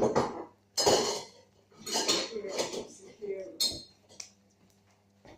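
Small hard objects clinking and knocking on a surface: a handful of separate sharp knocks over about four seconds, the loudest at the very start.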